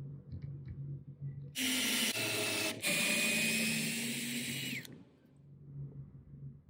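Cordless drill running for about three seconds with a steady whine, stopping for an instant about a second into the run and starting again.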